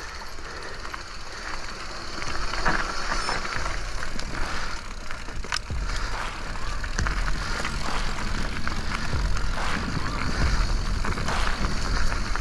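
Mountain bike rolling down a dirt forest trail: knobby tyres crunching over loose soil and the bike rattling over bumps, with sharp knocks here and there and a low rumble. It grows louder about two seconds in as the bike picks up speed.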